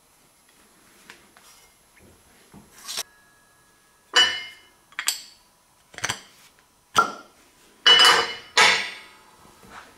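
A welded aluminium part clanking against a metal table as it is set down, shifted and picked up. There are about seven sharp metallic knocks, roughly one a second, starting about three seconds in.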